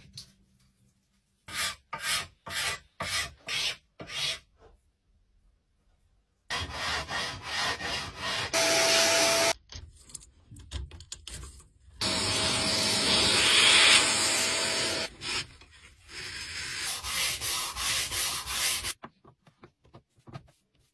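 Scraping and rubbing strokes of a small chisel-like scraper cleaning out the truss-rod channel of a wooden guitar neck, first as a string of separate strokes, then denser. Two longer stretches of steady noise with a faint steady tone are the loudest part, and more separate strokes follow near the end.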